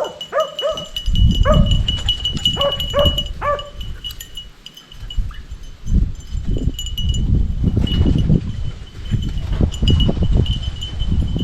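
Beagles baying on a rabbit's trail: a run of short, bending hound calls that stops after about three and a half seconds. A low rumbling noise comes in about a second in and carries on, with a steady high ringing tone beneath it all.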